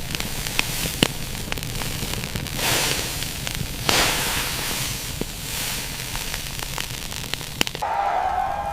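Irregular sharp crackles and snaps over a steady hiss and low rumble, with two swells of hiss about three and four seconds in. A wavering pitched call begins near the end.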